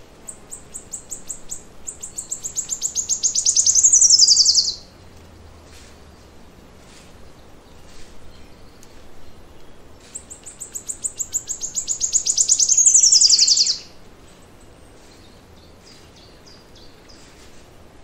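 A forest songbird sings twice, ten seconds apart. Each song is a long run of high, rapid notes that speeds up and grows louder over about four seconds, then ends in a quick falling sweep. Faint chirps come in between.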